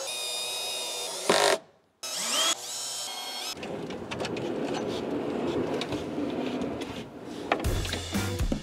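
A power drill whining in short runs, its pitch rising as it spins up at one point. Then from about three and a half seconds in comes a longer rolling, rattling noise of metal ball-bearing drawer slides being worked. Background music with a steady beat comes in near the end.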